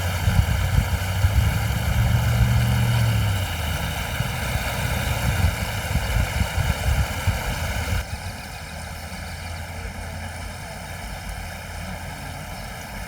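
Pickup truck engine revving as it drives through river water at a flooded ford. Its note rises about two seconds in and fades a second or so later, over the steady rush of the river.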